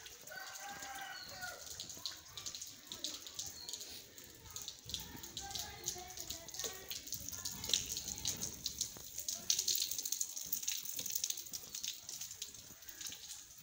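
Light rain pattering and water dripping on wet concrete, a steady dense patter throughout, with a faint voice in the background now and then.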